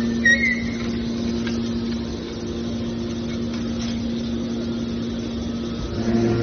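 Engine-driven hydraulic power unit of a mobile scrap car baler running steadily with a constant hum, and a brief high squeak just after the start.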